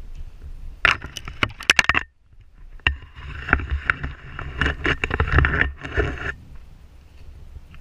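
Footsteps scuffing and trekking poles clicking on a rocky dirt trail, heard close up through an action camera, with a brief dropout about two seconds in.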